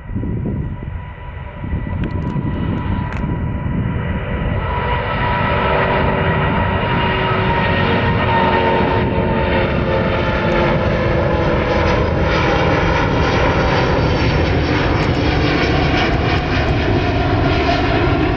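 Airbus A330-900neo's twin Rolls-Royce Trent 7000 turbofans at takeoff thrust as the airliner lifts off and climbs away: a loud, steady engine rush. From a few seconds in it grows brighter, with several whining tones that slowly fall in pitch.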